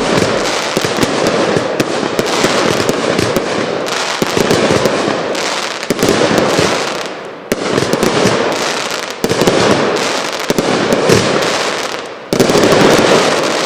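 Poker 4-piece, 64-shot aerial finale set of consumer firework cakes firing in rapid succession: a dense, continuous stream of crackles and booms. The sound breaks off sharply and starts again twice, about halfway through and about a second before the end.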